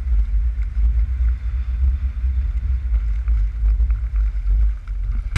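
Wind buffeting the camera's microphone in an uneven low rumble that rises and falls with the gusts, from a stiff wind of around 15 mph blowing across open water.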